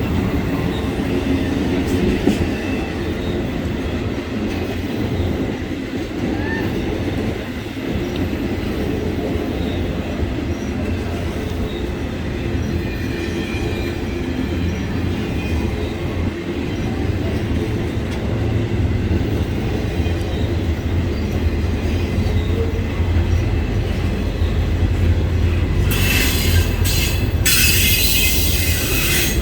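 BNSF double-stack intermodal freight train rolling past, a steady rumble of wheels on rail with faint wheel squeal. A loud harsh hiss comes in near the end.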